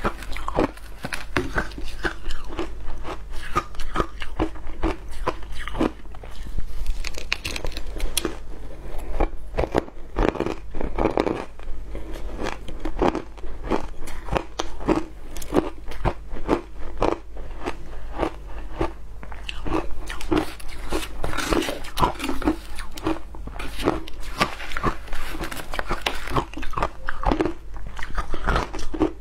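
Close-miked crunching and chewing of shaved ice, many crisp crunches in quick, irregular succession.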